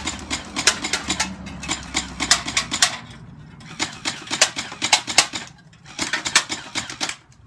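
P90 gel ball blaster firing on full auto: rapid, evenly spaced clacking shots, about eight a second. One long burst is followed by two shorter bursts, near the middle and near the end.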